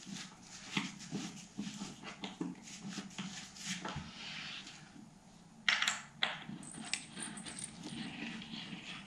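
Rustling and light knocks of cat tree parts being handled during assembly, a carpeted base and a sisal-wrapped post, with two sharper knocks a little past halfway.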